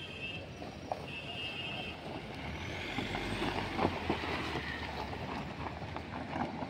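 A Mahindra Scorpio SUV drives slowly past close by over loose rock and gravel, its engine rumbling and its tyres crunching and popping stones, loudest a few seconds in. Earlier there is a repeated beeping, three short tones in the first two seconds.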